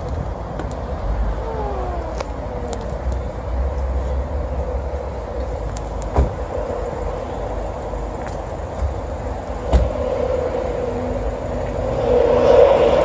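Steady running noise of vehicles at a railway station, with a falling whine about two seconds in, two sharp knocks later on, and the noise swelling near the end.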